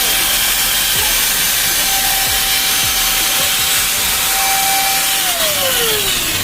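Bosch GWS 6-100 angle grinder running at full speed with a steady whine, then winding down after being switched off about five seconds in, its pitch falling as it slows.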